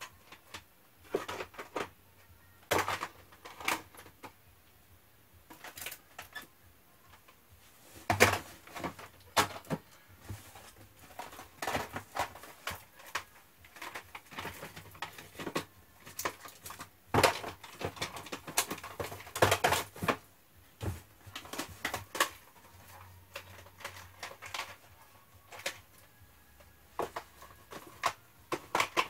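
Plastic cassette tape cases clacking against each other and the shelf as they are handled, stacked and slid into place, in irregular clusters of clicks and knocks.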